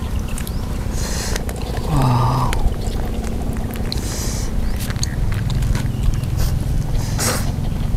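Eating sounds: chewing rice-paper rolls of papaya salad with shrimp and pork skin, with several short crisp crunches, over a steady low rumble. A brief low hum of a voice comes about two seconds in.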